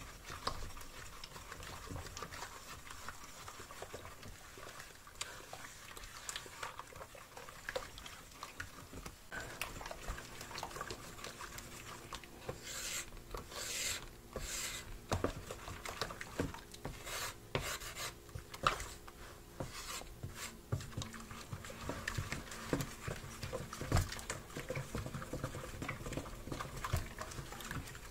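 Wooden spatula stirring a watery liquid-soap mixture in a plastic basin: swishing liquid with irregular taps and scrapes of the spatula against the basin, busiest around the middle.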